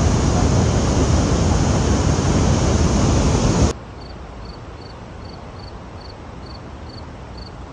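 Niagara Falls' whitewater rushing, a loud steady roar that cuts off suddenly a little over halfway through. After that, a quiet outdoor background with an insect chirping evenly, about two and a half high chirps a second.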